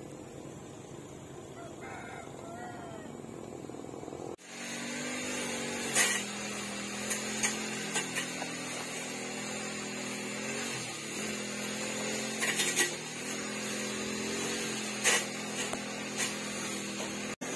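Small metal garden trowel digging into loose soil and tipping it into a plastic grow bag, with several short, sharp scrapes, over a steady hum.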